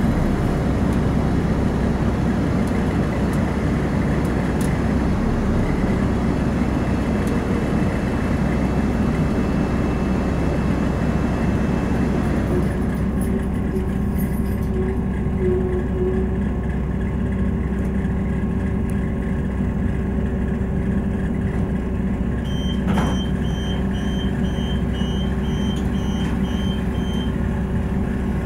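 Inside a Class 172 diesel multiple unit with ZF Ecomat transmission, the train's running rumble fades as it slows into a station and stops about halfway through, leaving the diesel engine idling with a steady hum. Near the end comes a click and then a rapid series of high beeps, the door warning as the doors are released.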